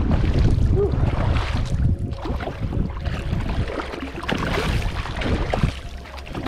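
Wind buffeting the microphone out on open water, a steady low rumble, with splashing from a hooked fish thrashing at the surface beside the boat.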